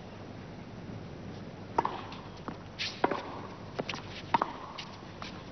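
Tennis rally: a ball struck back and forth by rackets, a sharp pock about every second and a quarter starting about two seconds in, with lighter ball bounces between the strokes.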